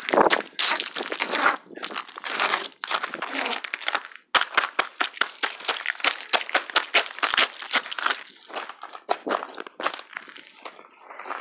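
Footsteps crunching on icy, crusted snow: a dense, continuous crackle of crunches.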